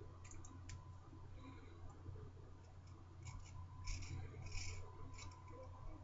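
Nanjie safety razor blade scraping through lathered stubble on the chin and upper lip, an against-the-grain pass. It comes as a string of short, crisp rasping strokes, the loudest a little past the middle.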